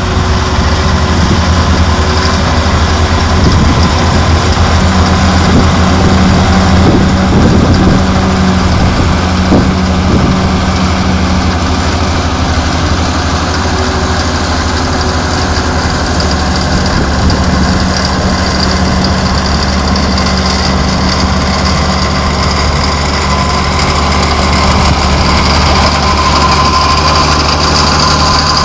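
Crawler tractor's diesel engine running steadily under load while ploughing. A higher whining note comes in near the end.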